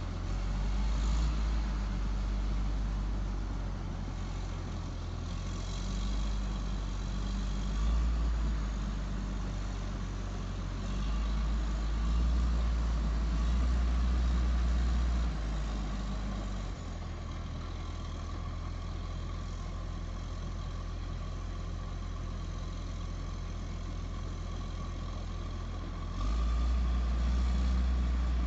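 Diesel engine of a motor grader running as the machine grades a gravel road base at slow speed, heard from some distance. The low rumble rises and falls in level several times.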